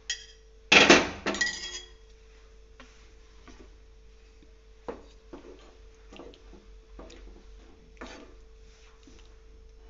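Wooden spatula stirring and scraping in a frying pan of wet tomato-and-egg gravy, with a loud clatter about a second in and then scattered knocks against the pan. A faint steady hum runs underneath.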